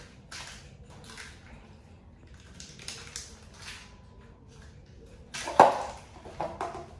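Baby monkey eating a cracker: a run of short crunching, crackling sounds, with a louder knock or scuffle about five and a half seconds in.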